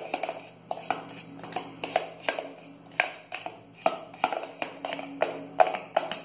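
A spoon knocking and scraping against the sides of a blender jar as cake batter is stirred by hand, about two knocks a second. The baking powder is being stirred in rather than blended.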